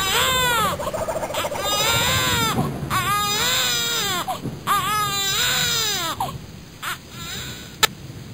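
Newborn baby crying in a run of rising-and-falling wails, about one a second, which stop about six seconds in; a single sharp click comes near the end.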